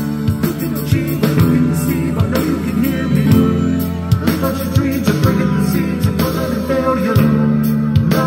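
Rock music with singing, guitar and a heavy bass line, played loud through a Sony SS-D170 speaker for a bass test, with a regular drum beat.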